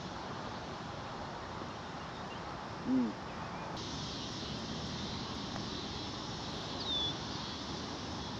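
Outdoor golf-course ambience: a steady background hiss, a short low hooting call about three seconds in, and a brief high bird chirp that falls in pitch near seven seconds.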